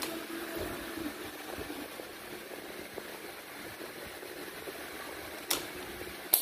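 Steady low background noise, broken near the end by two sharp knocks about a second apart.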